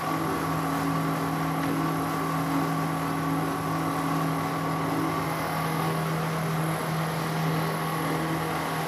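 Soap plodder running with a steady hum, its screw pushing soap through a 1 mm mesh screen and extruding fine soap noodles.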